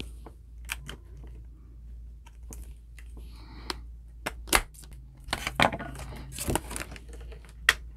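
A planner cover being worked onto the coil binding of a spiral planner by hand: a run of light clicks and snaps with some rustling, busiest about five to six and a half seconds in.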